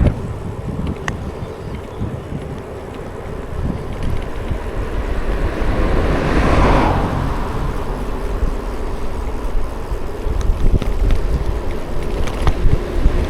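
Wind buffeting the microphone over steady road and traffic rumble while riding. A louder rushing sound swells and fades about halfway through, like a vehicle passing close by.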